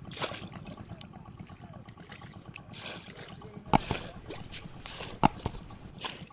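Water sloshing and splashing in a flooded paddy field, with two sharp hits about a second and a half apart, the second about five seconds in.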